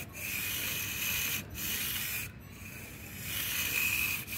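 Micro 1/64-scale RC car's tiny electric motor and metal-geared gearbox whirring with a high whine and a rough, rasping gear noise, cutting out briefly a few times and easing off around the middle as the throttle is worked. The gearbox sounds coarse, which the owner puts down to its metal gears.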